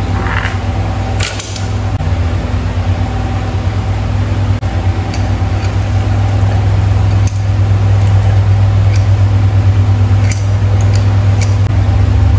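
Steady low machine hum that grows a little louder about halfway through, with a few light metallic clicks as a motorcycle drive chain is handled and fitted.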